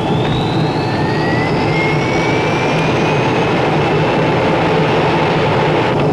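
Allison T56 turboprop engines of a ski-equipped Lockheed LC-130 Hercules starting up: turbine whines rise steadily in pitch over several seconds above a steady low drone.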